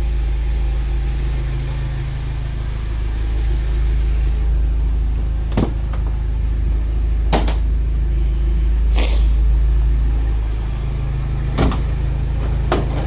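Modified Mini Cooper R58 John Cooper Works' turbocharged 1.6-litre four-cylinder idling steadily, with a few sharp clicks scattered through.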